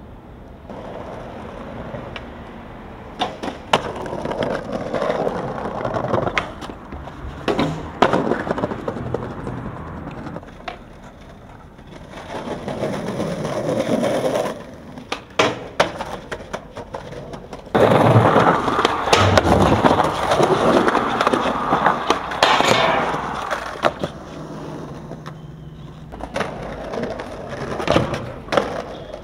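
Skateboard wheels rolling over pavement in several separate runs, each swelling and fading, with sharp clacks of the board popping, landing and slapping the ground.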